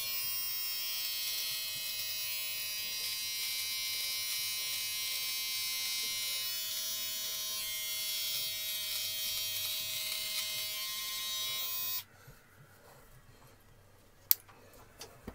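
Remington MB7000 cordless beard trimmer running while trimming a beard: a steady electric buzz with a high whine, switched off about twelve seconds in. Near the end come two sharp clicks.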